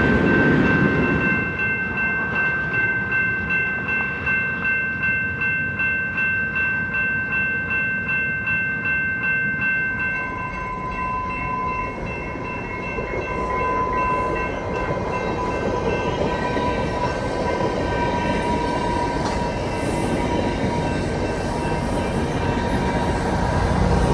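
A freight train rolling by with a steady rumble, while a ringing bell-like tone pulses about twice a second over it. About ten seconds in, the pulsing fades and a single steadier ringing tone carries on over the train noise.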